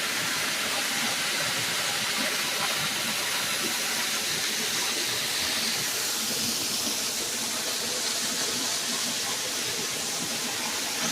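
Waterfall pouring into a swimming hole: a steady, unbroken rush of falling water.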